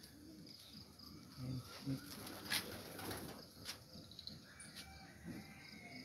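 Pigeons cooing, faint and low, a few short coos, with a couple of sharp clicks in between.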